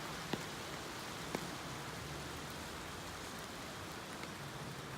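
Steady rainfall, an even hiss, with two sharp taps about a second apart near the start, like drops striking something close.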